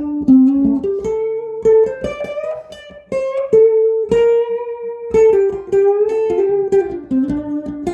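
Electric guitar with Seymour Duncan Zephyr humbucker pickups playing a single-note melodic line. The notes are picked one at a time, with a few held for about a second, mostly moving between the low and middle of the neck's range.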